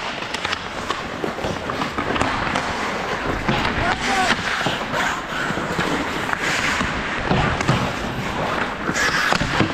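Ice hockey play heard up close from a skater: skate blades scraping and carving the ice, with scattered knocks of sticks and puck, over a steady rush of noise.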